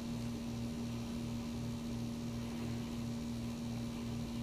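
Steady low electrical hum, with a fainter low throb pulsing about three times a second and no other sound over it.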